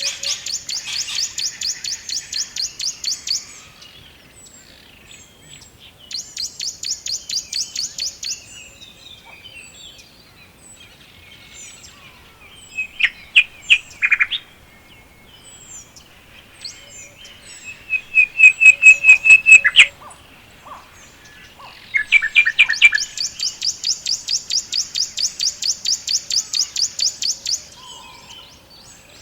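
Several songbirds singing. A high, fast trill of rapidly repeated notes comes three times: at the start, about six seconds in, and for several seconds from about 23 s. Between these, other birds give shorter, lower, louder trills, the loudest around 13 s and from about 18 to 20 s.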